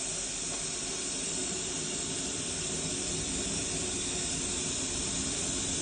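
Steady hiss of workshop machinery noise with a faint low hum underneath, unchanging throughout.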